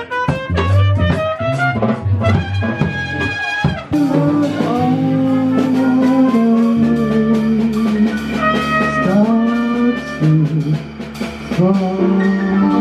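Jazz band playing, with horns and a drum kit. About four seconds in the music changes abruptly to longer held horn notes over a steady bass line.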